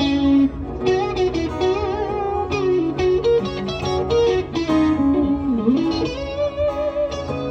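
Live instrumental break: an electric guitar plays a lead line with bending notes and wavering vibrato over an acoustic guitar accompaniment.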